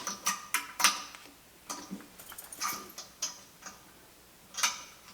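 Irregular metal clicks and knocks from a steel ball-style vise base being worked by hand after a shot of oil, to check that it moves freely, with a louder knock near the end.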